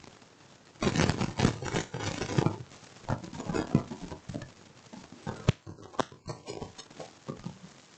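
A burst of rustling, handling noise lasting a couple of seconds near the start, then two sharp computer mouse clicks about half a second apart as the presentation slides are changed.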